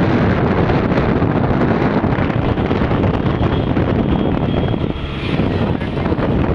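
Heavy wind buffeting the microphone on a moving scooter, a steady loud rush that covers the ride's engine and road noise, easing briefly about five seconds in.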